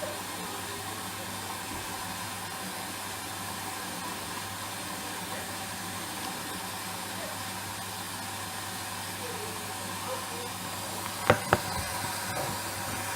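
Hoover washing machine in its rinse stage, with a steady hiss of water running in over a constant low hum. Two sharp knocks come about eleven seconds in.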